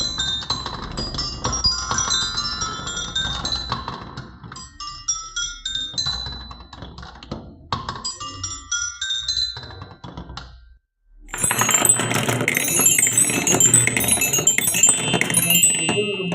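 Glass marbles rolling and clattering through a wooden marble run: a dense run of clicks and clacks with short bright pings. The sound stops briefly about eleven seconds in, then comes back louder and busier.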